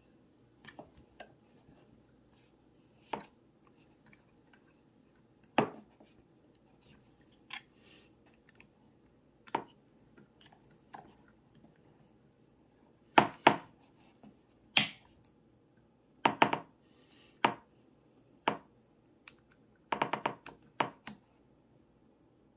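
Irregular sharp clicks and light taps of a pistol slide and its bolt-on compensator being handled while the compensator's small screws are worked, with a quick run of clicks near the end.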